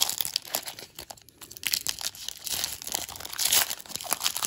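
Foil trading-card pack wrapper being torn open and crinkled by hand as the cards are pulled out, an irregular run of crackling that is loudest a little past the middle.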